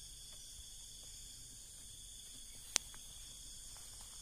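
Night insects, crickets among them, keeping up a steady high-pitched chorus, with one sharp click nearly three seconds in.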